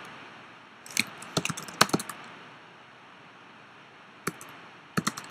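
Typing on a computer keyboard: a quick run of keystrokes about a second in, a pause, then a few more keystrokes near the end.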